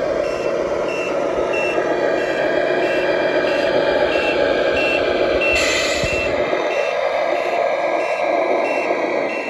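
Sound unit of a 1/14 Tamiya Mercedes-Benz Actros RC truck playing a diesel engine running with a reversing beeper, a short beep about twice a second. A brief hiss sounds a little past halfway.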